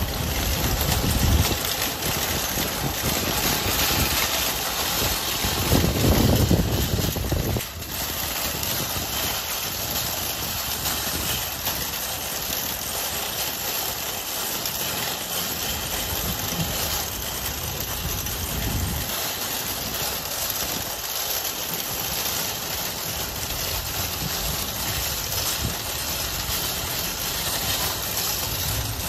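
Metal shopping cart being pushed over asphalt and concrete, its wheels rolling and rattling in a steady noise, with a louder, deeper rumble about six to seven and a half seconds in.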